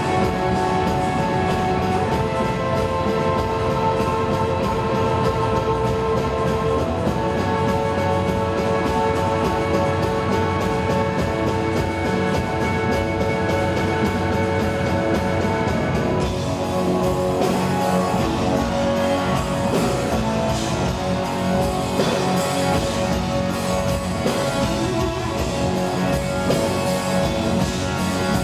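Live rock band playing through a theatre PA, heard from the audience: held keyboard chords over drums and bass, changing about halfway through to a busier passage led by electric guitar.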